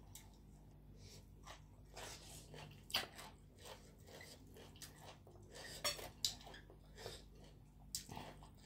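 Eating sounds at close range: chewing and mouth smacks over rice noodles and papaya salad, with scattered light clicks of a spoon against a ceramic plate, a few sharper ones about three and six seconds in.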